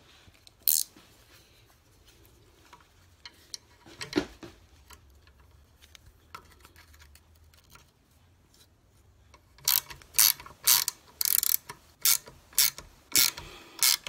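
Ratchet wrench clicking in quick repeated strokes, about three a second, starting about ten seconds in. It is tightening a nut to draw a new pin into a worn door hinge. Before that there are only a few faint clicks and a single knock.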